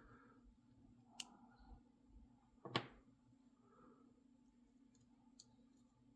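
A few small, sharp clicks of metal lock parts as a Mul-T-Lock padlock is taken apart, the loudest about two and a half seconds in, over a faint steady hum.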